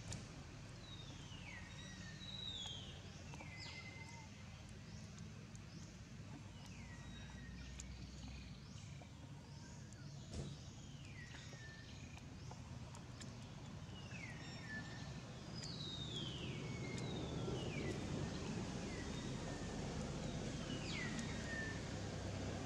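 A bird calling over and over, each call a clear whistled note that slides down in pitch and ends on a short held tone, repeated every second or two. Beneath it is a steady outdoor background hiss that grows louder near the end.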